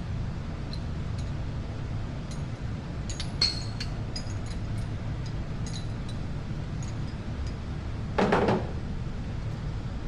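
Scattered light metallic clinks and ticks of hand tools and bolts on the Spyder's shock mounting hardware, over a steady low hum. Near the end comes a short, louder scrape.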